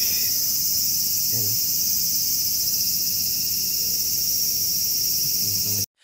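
Loud, steady, high-pitched chorus of insects, which cuts off suddenly near the end.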